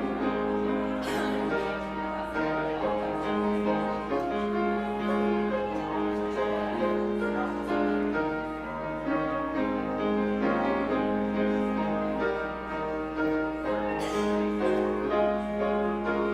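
Instrumental piano music, slow and steady, with held chords.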